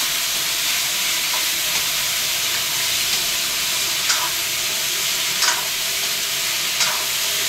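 Diced potatoes sizzling as they fry in oil in a black kadhai, giving a steady hiss. A metal spoon stirs them and knocks against the pan three times in the second half.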